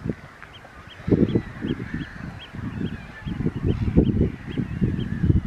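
Wind buffeting the microphone in irregular gusts, with birds calling over tidal flats: a short high peep repeated about three times a second, and fainter calls behind it.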